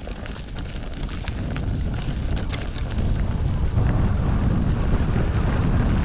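Wind buffeting the microphone on a fast downhill run, growing steadily louder as speed builds, with scattered sharp clicks and knocks.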